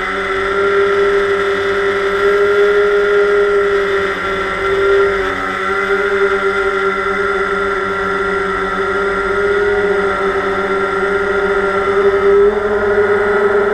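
DJI Phantom quadcopter's electric motors and propellers running with a steady whine while it hovers and manoeuvres, heard up close from the camera mounted on the drone. The pitch shifts a little now and then, most noticeably near the end.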